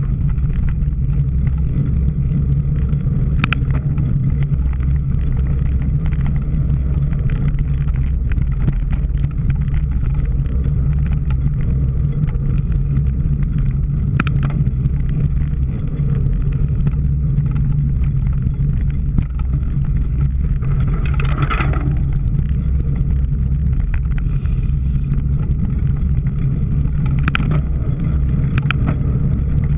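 Steady low rumble of wind and tyres on a camera carried on a cyclocross bike being ridden, with a few sharp clicks and a brief rattle about two-thirds of the way through.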